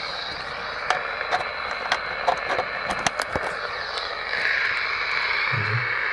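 Hiss and crackle from an electrosmog meter's loudspeaker as it is held near a mains cable, with scattered sharp clicks; the hiss swells louder about four seconds in. The tester takes it for interference from the TV antenna carried over the media box onto the mains plug.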